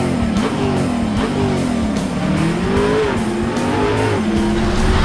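An engine sound effect revving up and down several times, its pitch rising and falling, over background music.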